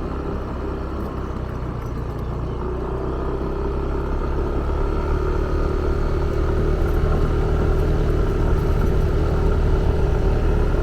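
Motorbike engine running steadily while riding, under a constant low rumble. The engine hum gets a little louder from about three seconds in.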